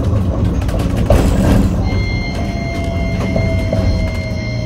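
Interior running sound of a Hiroden 5100-series (Green Mover Max) low-floor tram: a steady low rumble from the wheels and body, a brief hiss about a second in and a few knocks. From about two seconds in, a motor whine with high steady tones joins, one tone sinking slowly in pitch.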